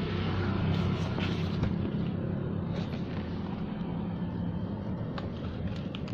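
Steady low hum of a running vehicle engine, slowly fading, with a few faint clicks and rustles.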